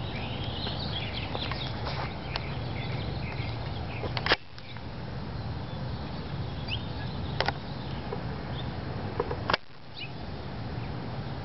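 Small birds chirping now and then over a steady low rumble, with three sharp clicks, about four, seven and a half, and nine and a half seconds in.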